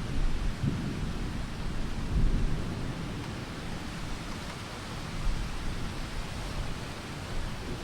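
Thunder rumbling low over the steady hiss of rain, the rumble swelling louder about two seconds in.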